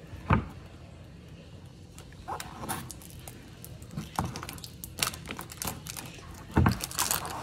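Plastic slime tub being unsealed by hand: scattered scratches, clicks and crinkles as the seal around the lid is picked at and peeled off, with a thump against the table shortly after the start and another near the end.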